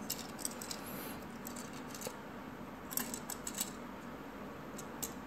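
Small plastic parts of a 1/144 Gunpla model kit clicking and tapping as they are handled and fitted together: scattered light clicks, with a cluster of them about three seconds in.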